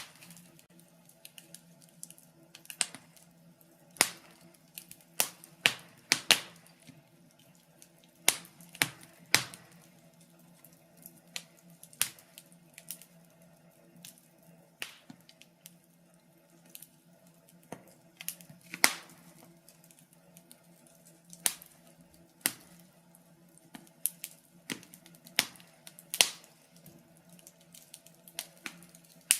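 Burning wood fire crackling: irregular sharp pops and snaps, some in quick clusters and a few much louder, over a faint steady low hum.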